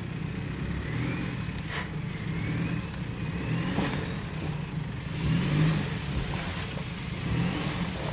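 Four-wheel-drive vehicle's engine working under load on a steep off-road hill climb, its revs rising and falling, with a rising whine that recurs about once a second and a few sharp knocks. A hiss joins in about five seconds in.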